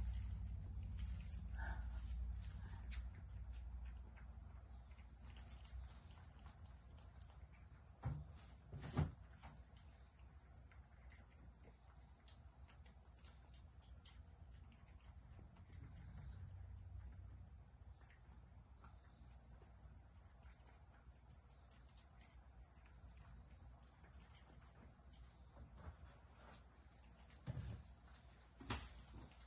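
Steady high-pitched chorus of insects, with scattered faint clicks from a cat eating dry kibble from its bowl.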